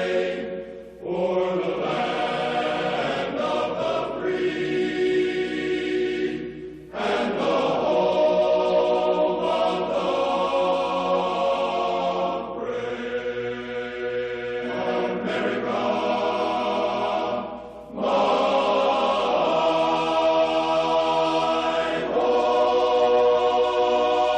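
Choral music: a choir singing long, held chords in slow phrases, with short breaks between phrases about a second in, about seven seconds in, and about eighteen seconds in.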